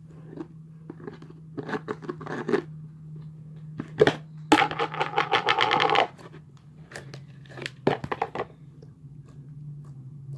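Slime being squeezed and stretched by hand, making short bursts of crackling and squelching, over a steady low hum. About halfway through comes the loudest sound, a longer buzzy squelch of about a second and a half.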